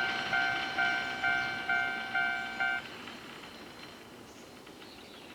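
Electronic level-crossing alarm on a Japanese cable-car line, ringing a repeated bell tone about twice a second. It cuts off suddenly about three seconds in, the sign that the crossing is clearing once the cable car has gone by.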